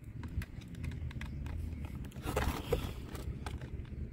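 Small screwdriver working out the screws that hold plastic retaining straps to a cardboard packaging insert: scattered light clicks and ticks, with a short scraping rustle about two and a half seconds in.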